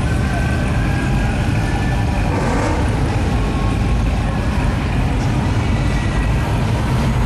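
Early-1970s Buick muscle car's engine running with a loud, steady low rumble as the car rolls slowly past at low speed.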